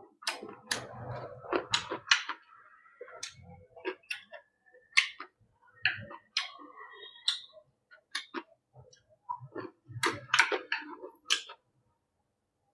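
Eating sounds: utensils clicking and tapping against a rice bowl in irregular sharp clicks, a few ringing briefly, with some dull low thuds.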